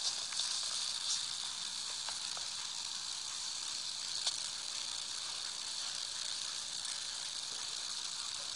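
Steady background hiss from a phone's microphone, with a few faint soft clicks from handling or movement.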